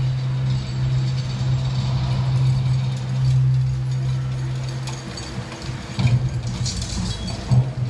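A loud, steady low drone played over the light show's loudspeakers. From about five seconds in it breaks up into an uneven rumble with a few sharp knocks near the end.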